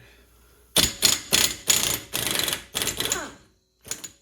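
Impact wrench hammering in several short bursts over about three seconds, with one more brief burst near the end, loosening the 33 mm pinion nut on a Chrysler 8.25 rear axle.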